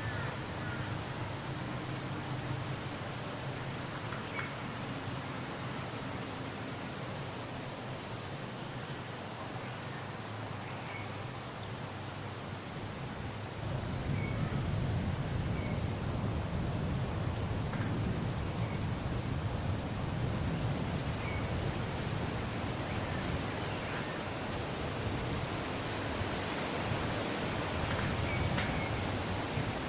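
Insects chirring steadily at a high pitch, with a second pulsing trill just below it. A low rumble comes in about halfway through.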